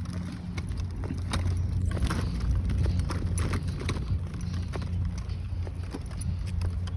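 Footsteps and stroller wheels on a park path during a walk: irregular knocks roughly twice a second over a steady low rumble.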